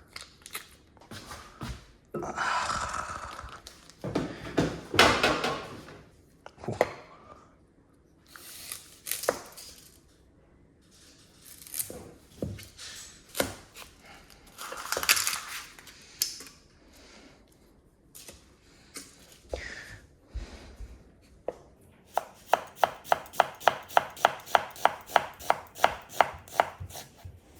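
Kitchen handling sounds, irregular clatter and rustles of utensils and ingredients, then near the end a knife chopping quickly and evenly on a cutting board, about five strokes a second.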